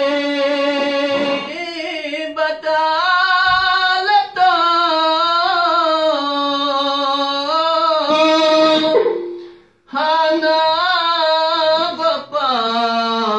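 A man's solo voice chanting a Balti devotional qasida in long, drawn-out, wavering sung notes. The voice breaks off briefly about nine seconds in, then picks up again and sinks lower near the end.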